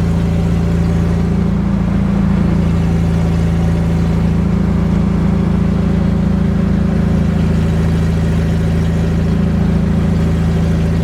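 GAZ Volga's ZMZ-402 2.4-litre four-cylinder petrol engine running at a steady pace with the muffler and resonator gone from the exhaust: a loud, steady, deep exhaust drone.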